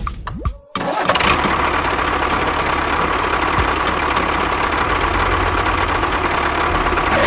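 A small motor running steadily with a whine, cutting in sharply about a second in after a brief drop.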